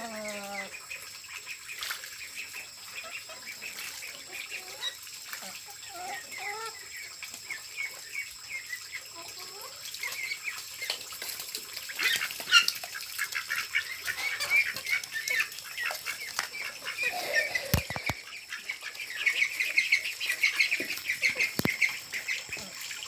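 Backyard ducks and chickens calling, over a steady stream of high, rapid chirping that gets busier in the second half. There are a couple of soft knocks near the end.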